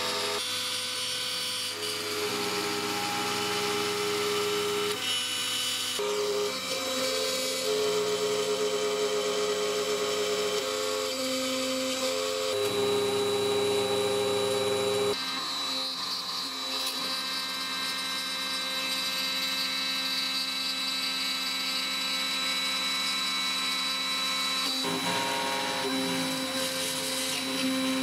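X-Carve CNC router cutting quarter-inch MDF with an eighth-inch bit. The spindle runs with a steady high whine, and lower machine tones under it hold for a few seconds and then change pitch as the gantry moves.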